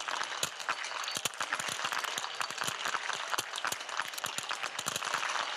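Many .22 biathlon rifles firing at the shooting range at once: a dense, irregular crackle of sharp shots as a large group of athletes shoots together.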